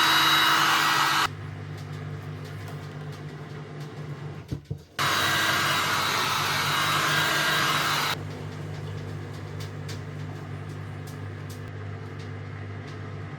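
Heat gun blowing hot air to soften a headlight's lens sealant, switched off about a second in, run again for about three seconds from roughly five seconds in, then off. A low steady hum and a few light clicks are heard between the runs.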